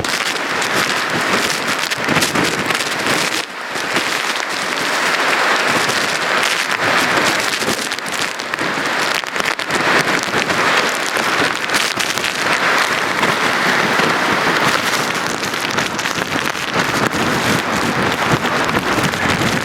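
Heavy hurricane rain driven by the wind: a dense, loud hiss of rain that swells and eases every few seconds, full of crackling patter.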